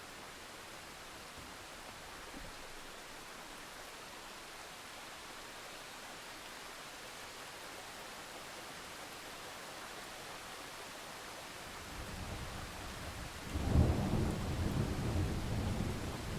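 Steady rain hissing, then a roll of thunder rumbling in about twelve seconds in, cracking loudest a couple of seconds later and rumbling on.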